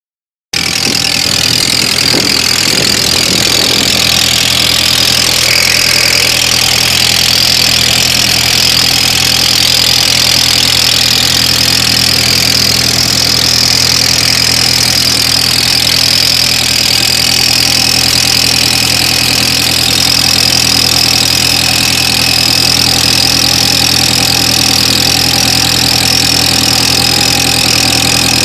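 A 2003 Audi A4 Quattro 1.8T turbo four-cylinder idles steadily just after starting. A steady high-pitched whine sits on top of the idle: the weird start-up noise whose cause the owner doesn't know.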